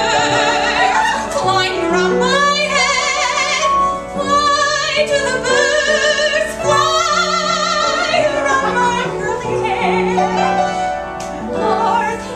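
A woman singing a musical-theatre song in an operatic style, her held notes wavering with a wide vibrato, over instrumental accompaniment.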